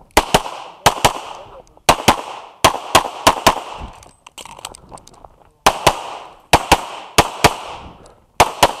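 Pistol shots fired in quick pairs, about eight pairs, with a pause of about two seconds midway: double taps on each target during an IPSC stage run, each report with a short echo.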